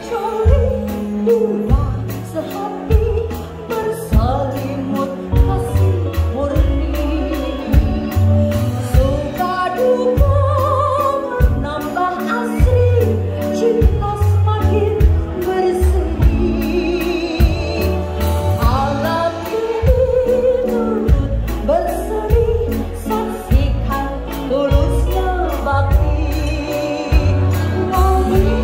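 A woman singing with vibrato into a microphone over amplified backing music with a steady bass line.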